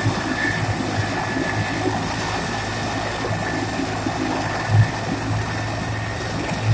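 Helicopter running on the ground with its turbine engines and main rotor turning: a steady high turbine whine over a constant low rotor drone and rushing noise. There are a couple of brief low thumps, the louder one about two-thirds through.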